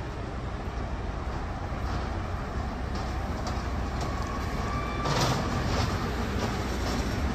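Road traffic: a steady low rumble of a double-decker bus and passing cars, with a short louder rush of a passing vehicle about five seconds in.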